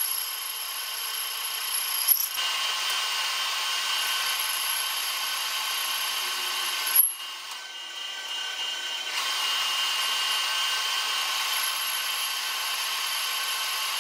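Metal lathe turning a spinning wheel rim, the tool cutting steadily with a high, even whine over a hiss of cutting. There is a short break about two seconds in, and a sharp spike about seven seconds in followed by a quieter stretch of about two seconds before the cut resumes.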